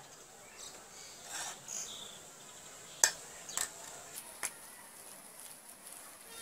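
Hand kneading rice flour into mashed raw banana in a steel bowl: a sharp clink against the bowl about three seconds in, then two softer knocks as the mixing starts. Faint outdoor background with a few bird chirps and a thin high insect-like whine.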